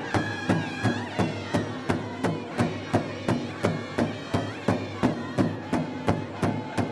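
Powwow drum group singing in chorus, men and women together, over a large powwow drum struck in unison by several drummers at a steady beat of about three strikes a second.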